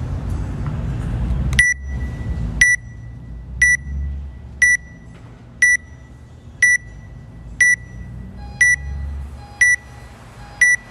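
Workout countdown timer beeping down to the start of the workout: ten short high beeps, one a second, beginning about two seconds in.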